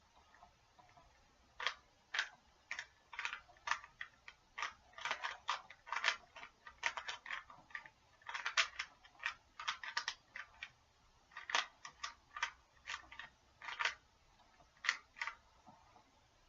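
Rubik's Cube faces being twisted by hand: a fast, irregular run of sharp plastic clicks that starts about two seconds in and stops near the end.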